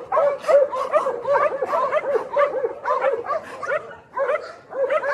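Many dogs barking and yipping together, a quick run of short barks, several a second, with a brief lull about four seconds in.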